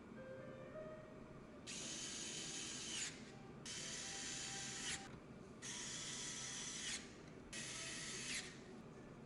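A ratcheting mechanism drawn four times in quick succession, each stroke a rasping run of clicks lasting about a second, with short pauses between.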